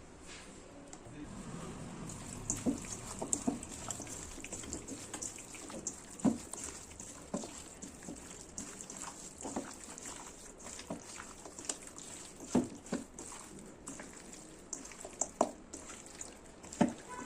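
Water splashing, with irregular light knocks and clicks throughout.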